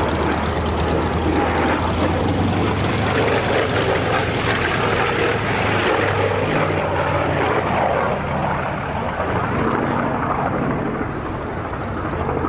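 The four Pratt & Whitney R-2800 radial engines and propellers of a Douglas DC-6A on a low pass, a loud, deep, steady drone with a rough propeller rasp over it. The rasp thins and the sound softens after about eight seconds as the aircraft banks away.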